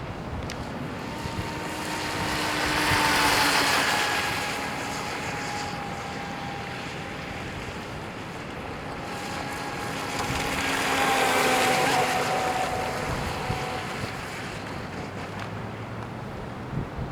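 Modded Rio EP electric RC boat with a 2600kv brushless motor running on 2S: its motor whine swells and fades as it passes twice, the pitch dropping a little on each pass, over steady wind noise on the microphone.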